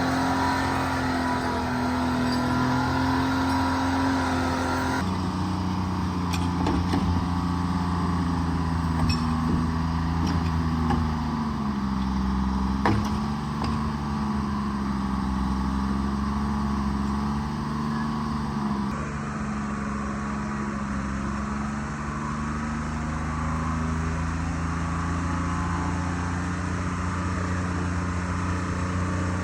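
Diesel engine of a forestry forwarder running under work, its engine speed dipping and rising a little, with a few clicks and one sharp knock about thirteen seconds in.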